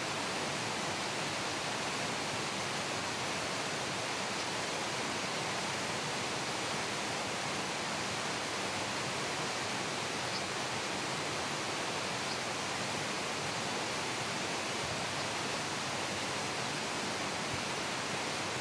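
Steady rushing of a waterfall and the stream below it, an even unbroken wash of water noise.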